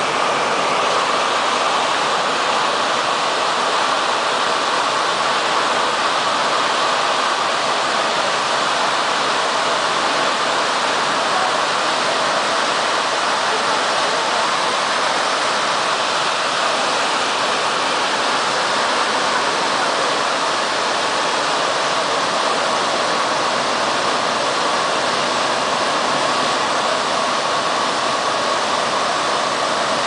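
TEPO-AUTO TP901 tunnel car wash's drying blowers running steadily: a loud, even rush of air with a faint whine.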